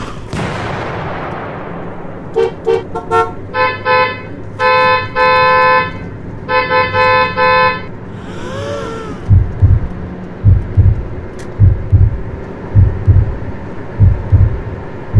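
Car horn honking: a run of short toots, then a long blast, then more short toots. After a brief swooping tone, about ten deep, loud thumps follow over the last six seconds.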